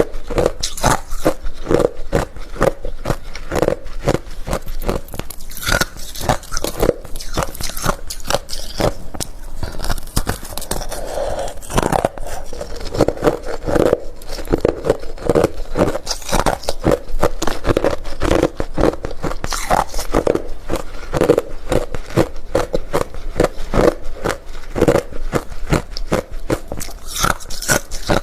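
Close-miked crunching and chewing of hard refrozen crushed ice, with many rapid, sharp crunches in a steady run.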